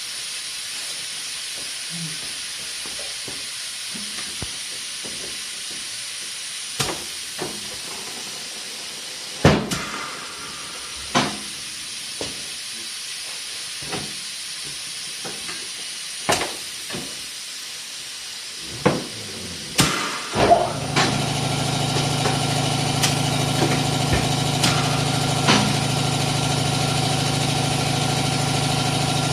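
Tire-changing work: a steady hiss of compressed air with scattered sharp metal knocks and clanks. About two-thirds of the way in, an electric motor starts and runs with a steady hum.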